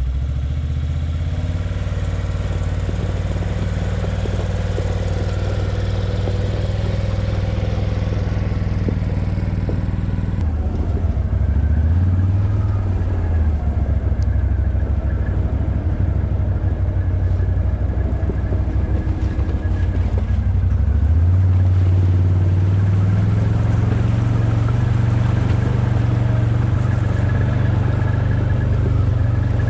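A motor vehicle's engine running steadily under way, with its note stepping up and down as engine speed changes, around 10, 12 and 21 seconds in.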